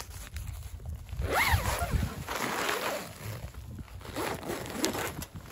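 Tent door zipper being pulled open, a rasping run in two long pulls, the second about four seconds in.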